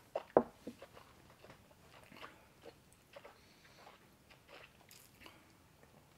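Mouth sounds of people tasting a sip of rum: wet lip smacks and tongue clicks, sharpest in the first second, then softer scattered smacks.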